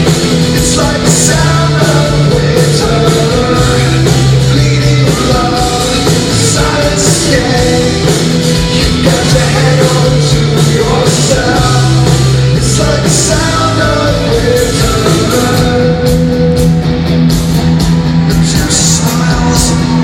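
Live rock band performing at full volume, with a male lead voice singing over electric guitars, bass and drums, recorded at a concert.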